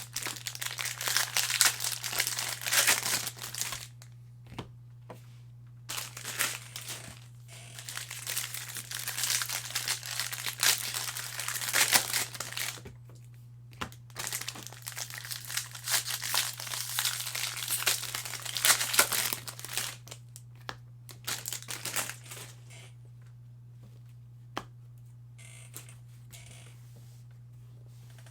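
Foil trading-card pack wrappers being torn open and crumpled, in three stretches of crinkling, with quieter handling after about twenty-two seconds. A steady low electrical hum sits underneath.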